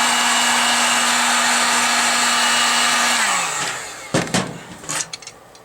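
Heat gun blowing steadily, then switched off a little over three seconds in, its fan motor winding down with a falling hum. A few sharp clicks and knocks follow.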